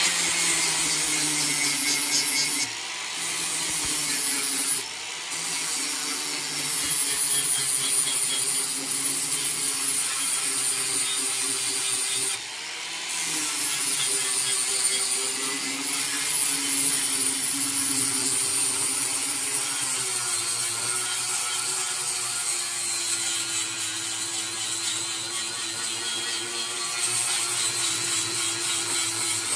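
Angle grinder with a flap wheel grinding down the rough cut edges of a steel ring, running steadily with a high whine. The sound dips briefly three times in the first half, then runs on.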